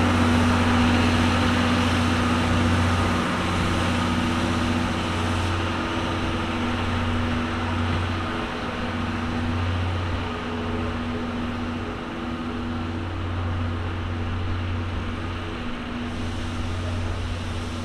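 Locomotive running steadily during shunting: a low mechanical drone with a steady hum on top, slowly growing fainter.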